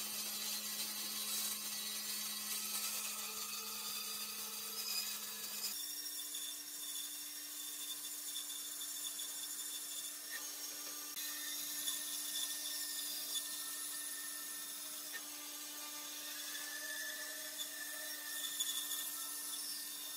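Bandsaw running and cutting through a thick tree-stump slab: a steady motor hum under the noise of the blade in the wood. The hum steps up in pitch about six seconds in.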